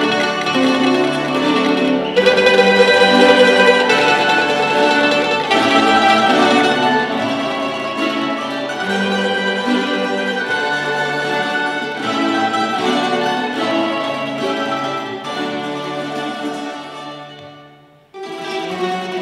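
Tamburica ensemble of Farkaš-system tamburas, small tamburas with a bugarija and bass, playing a traditional Dalmatian tune. Near the end the playing fades down almost to nothing, then cuts back in abruptly.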